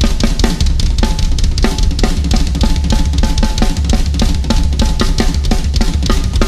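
Solo on a Sonor acoustic drum kit with Zildjian cymbals: a fast, dense stream of snare and tom hits and cymbal strokes over bass drum strokes that never let up.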